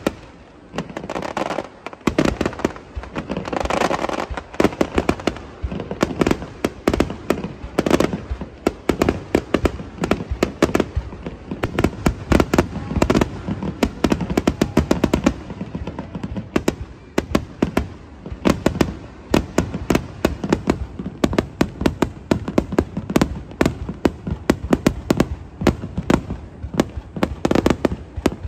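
Aerial fireworks display: a near-continuous run of sharp bangs from bursting shells, several a second, with louder, echoing booms about one, four and eight seconds in.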